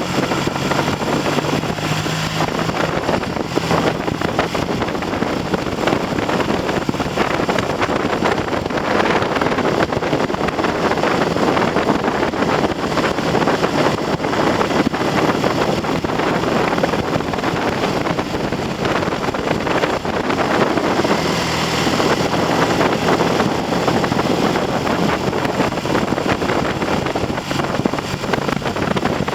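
Heavy wind noise buffeting the microphone on a moving Triumph TR6 motorcycle, with the bike's parallel-twin engine running underneath at light throttle while it is run in on new pistons and rings. The engine note comes through more clearly near the start and again about three-quarters of the way through.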